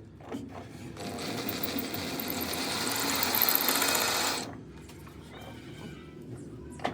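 A metalworking tool running on steel with a dense, rapid buzzing that starts about a second in and stops abruptly about four and a half seconds in, followed by lighter clatter.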